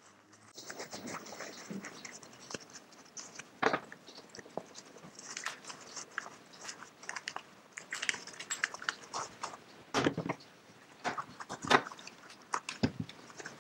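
Shop rag rubbing and crinkling as gloved hands wipe solvent and built-up chain lube off a kart engine's starter-motor sub-assembly, with a few sharper clicks and knocks as the part is handled.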